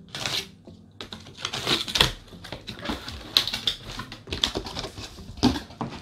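Cardboard box being opened: a utility knife slitting the seal, then cardboard flaps scraping and knocking as they are pulled open, heard as a run of irregular sharp clicks and rustles.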